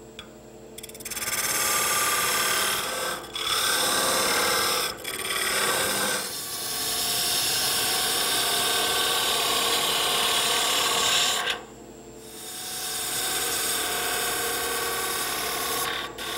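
Lathe turning tools cutting into a spinning wooden bat blank: a steady scraping hiss of shavings being peeled off, in passes several seconds long with brief breaks about three and five seconds in and a longer pause a little before the end, as the head of the bat is rounded over.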